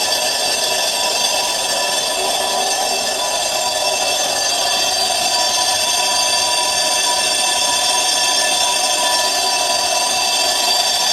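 Bus brake drum being turned on a lathe: the cutting tool and drum give a steady, high-pitched ringing squeal of several tones over the hiss of the cut.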